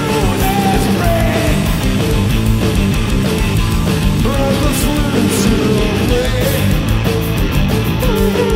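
Loud heavy rock played live on electric guitar and drum kit, with no break.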